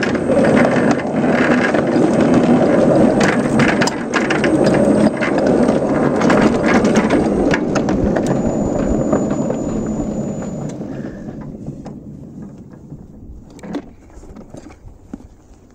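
A 5-inch gauge ride-on garden railway train, hauled by a scratchbuilt Whitcomb locomotive, running along the track: a steady rolling rumble from wheels and drive with frequent sharp clicks. From about ten seconds in the noise dies away steadily as the train slows to a stop, leaving only a few scattered clicks.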